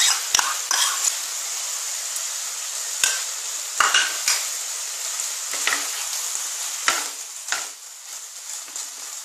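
Chicken filling with onion and tomato sizzling steadily in a non-stick frying pan while it is sautéed, with irregular scrapes and knocks as utensils work the mixture against the pan.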